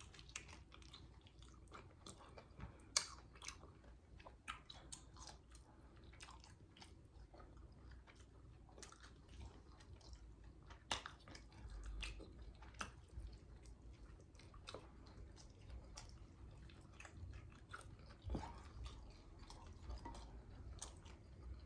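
Chewing and biting into crispy fried chicken wings: quiet, irregular crunchy clicks, with sharper snaps about three seconds in and again about eleven seconds in.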